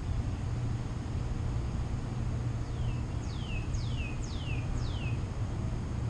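A bird calls five quick whistled notes, each sliding down in pitch, in the second half, over a steady low hum.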